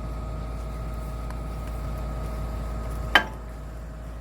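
Hitachi ZX210 excavator's engine running steadily with a constant hum, then a single sharp hammer blow on metal about three seconds in.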